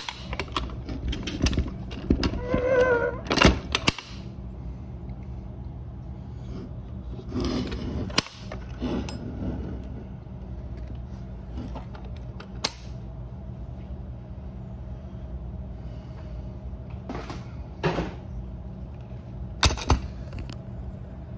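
Scattered metallic clicks and knocks from fingers working the clamp latch and lid of a sealed steel surplus ammunition can, trying to get it open. The clicks come thickest at first, then single knocks every few seconds, over a faint steady hum.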